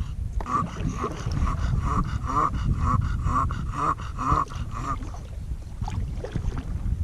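Bulldog whining over and over, short high whines about twice a second for about five seconds, over low rumbling wind noise on the microphone.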